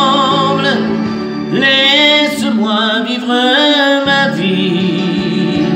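A French love ballad plays over a recorded backing track while a man sings into a handheld microphone, in wavering melodic phrases.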